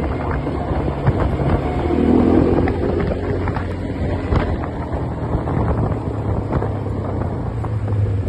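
Quad bike (ATV) engine running, with wind on the microphone and scattered knocks; the engine gets louder briefly about two seconds in.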